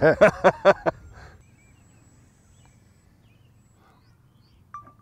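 A person laughs briefly in rapid bursts during the first second, then only faint outdoor background remains. A single short high tone sounds just before the end.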